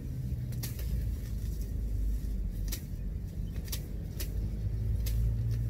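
Tall grass and weeds being pulled up by hand, with irregular crisp snaps of stems, about one or two a second, over a steady low rumble.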